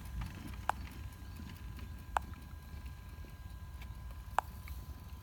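Low wind rumble on the microphone with three sharp clicks, about one and a half to two seconds apart, and a faint steady high whine underneath.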